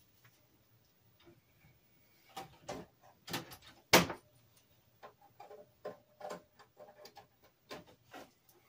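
Irregular clicks and knocks of an expansion card and metal chassis parts being handled as the IBM EGA card is fitted into an open IBM 5170 PC, the loudest knock about four seconds in, over a faint steady hum.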